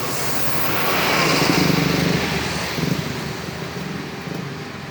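A bus driving past close by: its engine and tyre noise swell to a peak about a second and a half in, then fade away.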